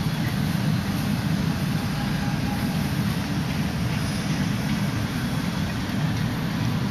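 Steady low rumbling background noise with a faint hiss above it, even and unchanging, with no distinct sounds standing out.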